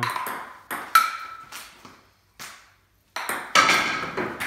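Table tennis rally: a celluloid ball clicking off rubber paddles and the hard top of a Stiga table in a string of sharp clicks, some with a short ringing ping, with a break near the middle and a quicker run near the end.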